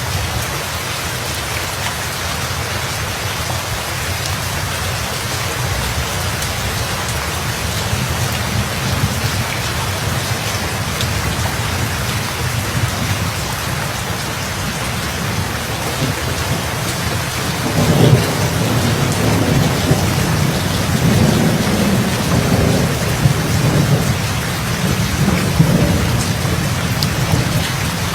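Steady heavy rain, with a deep rolling thunder rumble that breaks in about two-thirds of the way through and keeps surging.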